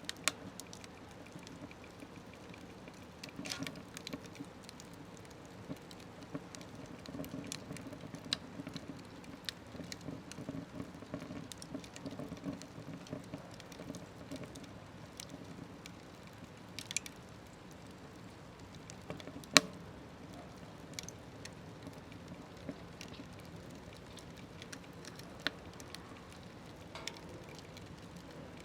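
Wood fire burning in a small smokeless wood stove: a low steady rush of flame with irregular crackles and sharp pops from the burning wood, the loudest pop about two-thirds of the way through.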